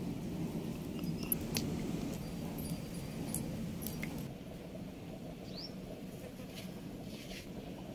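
Scattered light clicks and taps of bitter gourd slices being cut and handled, over a steady low background noise, with a short rising bird chirp a little past halfway.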